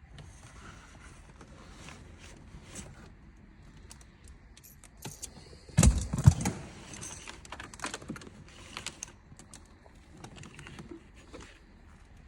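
Wiring and plastic interior trim being handled and routed: rustling and small clicks throughout, with a cluster of heavy knocks about six seconds in.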